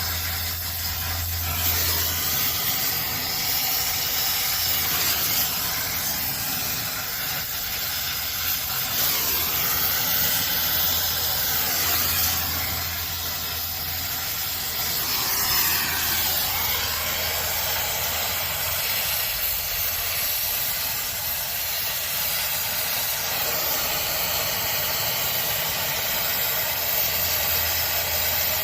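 Brazing torch flame hissing steadily while filter driers are brazed into heat pump refrigerant lines.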